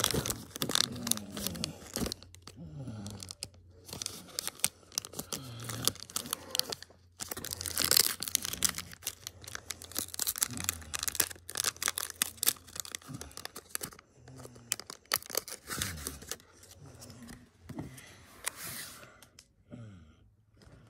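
Pokémon trading cards handled and flipped through by hand: a busy run of rustling, flicking and crinkling of card and pack foil, which dies down about a second and a half before the end.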